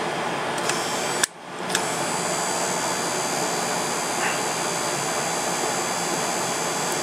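Electric power window motor from a BMW door, held loose and run on its switch to drive to its fully-up position, giving a steady whine. It cuts out briefly about a second in, then runs on evenly.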